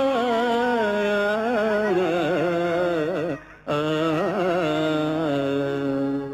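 Male voice singing a drawn-out, wordless melismatic passage of a Telugu padyam in Carnatic style, with heavy wavering ornaments. It breaks off briefly for breath a little past halfway, then resumes with long held notes that fade near the end.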